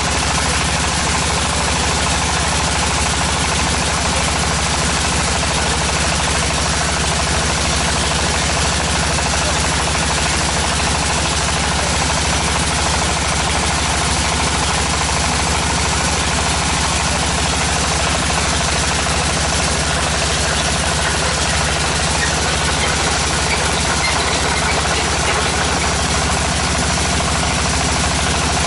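Zhengzhou Defy DFT-450 tractor-mounted water well drilling rig running steadily, its engine and drilling machinery making a constant loud drone with a rapid, even pulsing underneath.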